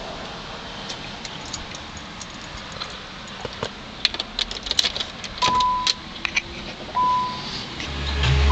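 Car keys jangling and clicking inside a 1990 Infiniti Q45, with two short high electronic beeps of the car's warning chime about five and a half and seven seconds in. A louder low sound swells in near the end.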